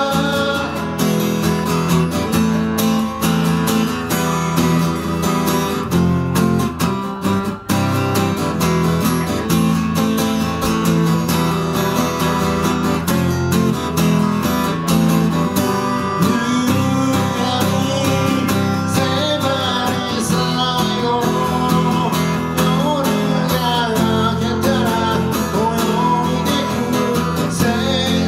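Solo acoustic guitar being strummed, with a man singing along to it. The playing breaks off for an instant about seven and a half seconds in.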